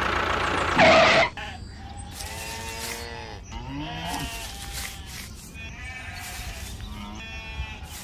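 Sheep bleating: several wavering calls in a row. Before them, a steady running noise ends with a short loud burst about a second in.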